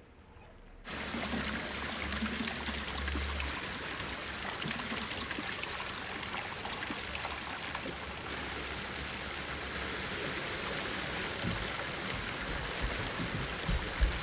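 Steady rush of pouring water that starts abruptly about a second in, with a low rumble under it at first and a few low thumps near the end.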